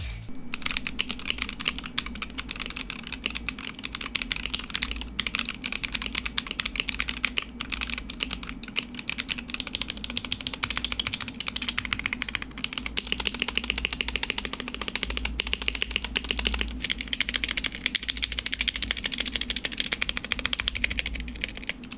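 Continuous fast typing on a stock Womier K87 stacked-acrylic mechanical keyboard with Gateron Red linear switches and XDA-profile keycaps: a dense, unbroken stream of keystroke clacks.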